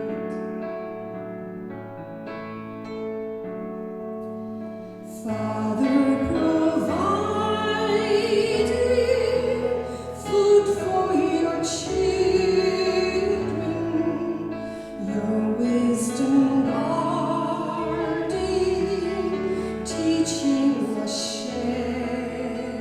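A hymn sung with keyboard accompaniment. About five seconds of held chords come first, then the voices enter and sing the melody over the chords.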